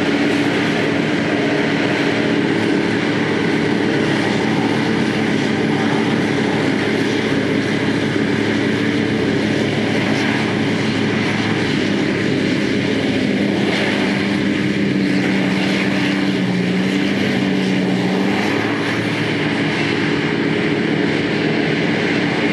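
Heavy farm machinery's diesel engine running steadily at working speed, a loud, continuous drone that wavers slightly in pitch.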